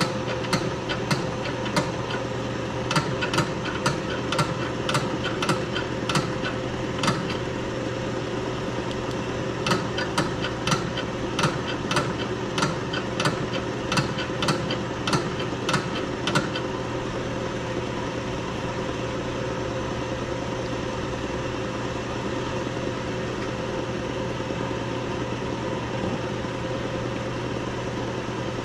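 Shop hydraulic press being worked to press down an automatic-transmission overdrive unit: a steady machine hum, with sharp rhythmic clicks about twice a second. The clicks come in two spells over the first sixteen seconds, with a short pause about seven seconds in, and then stop, leaving only the hum.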